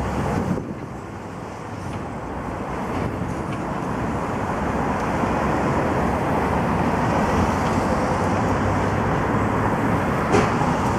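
Road traffic going past, a steady rushing noise that builds over the first few seconds and then holds, with one short knock near the end.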